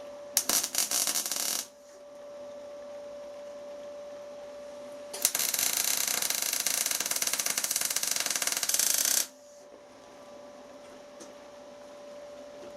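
Workshop machinery with a steady hum, cut by two bursts of harsh, rapid rattling metal-working noise: a short one about half a second in and a longer one of about four seconds in the middle.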